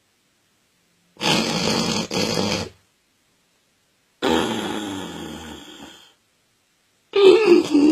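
A man snoring in three separate bouts: a two-part snore, a long snore that fades out, and a louder pitched, groaning snore near the end, with dead silence between them.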